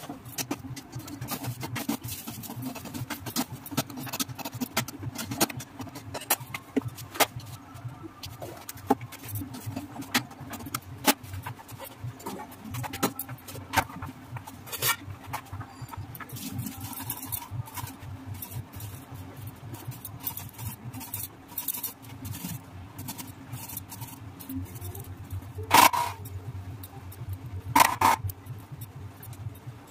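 Kitchen clatter: scattered light taps and clinks of utensils against pots and a steel bowl, over a steady low hum. Near the end come two louder metallic clangs, a couple of seconds apart.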